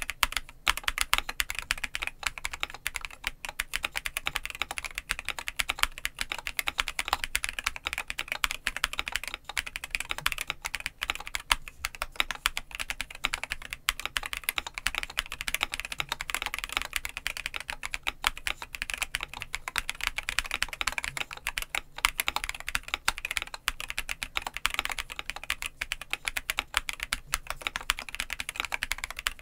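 Continuous typing on a Monsgeek M3W mechanical keyboard with a metal case, V3 Cream Blue Pro switches and PBT keycaps: a dense, unbroken run of key clacks.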